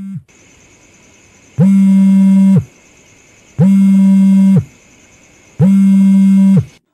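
Mobile phone vibrating with an incoming call: a loud, low buzz about a second long, three times at two-second intervals, the pitch sliding briefly as each buzz starts and stops.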